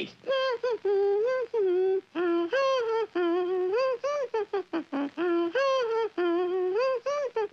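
A cartoon character's voice singing a wordless, cheerful tune in short held notes that slide up and down between phrases.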